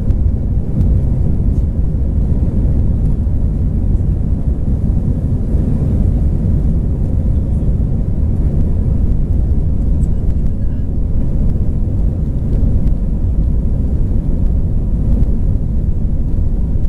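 Steady low rumble inside an airliner cabin as the plane taxis: the jet engines running and the wheels rolling along the taxiway.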